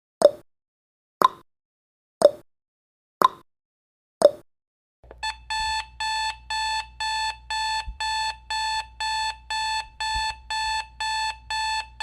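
Countdown timer ticking once a second, five short ticks, then reaching zero about five seconds in, when an alarm-clock beeping starts: even beeps at one steady pitch, about two a second.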